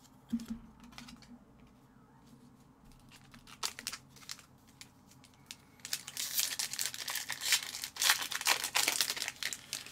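A few light clicks of cards being handled, then from about six seconds in a hockey card pack's wrapper crinkling and tearing as it is ripped open.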